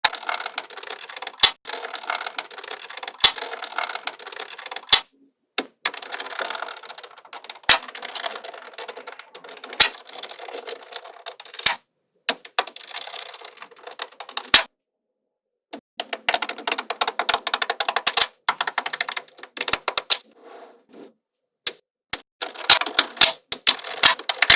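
Small magnetic balls clattering and clicking together as they are handled and joined: stretches of fast rattling clatter, broken by single sharp snaps as balls click into place. The sound cuts out completely a few times for a moment.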